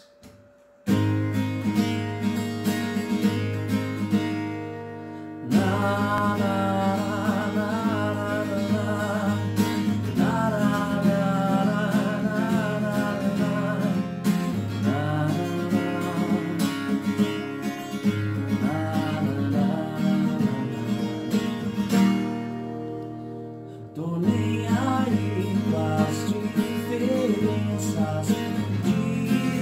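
Acoustic guitar playing a song's introduction, with a wavering wordless melody line over it from about six seconds in. The music thins out briefly around four seconds and again around twenty-three seconds.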